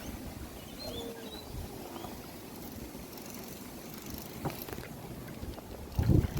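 Go-karts driving over rough ground: a steady low rumble with a few knocks, and two heavy thumps near the end.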